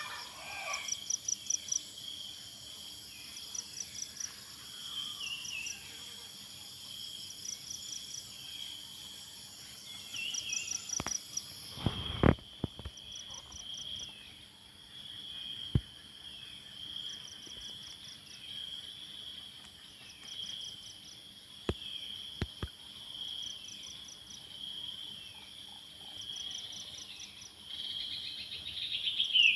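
Insects chirping: a steady high-pitched drone with a burst of rapid chirps every couple of seconds. A few sharp knocks come about twelve seconds in and again around sixteen and twenty-two seconds.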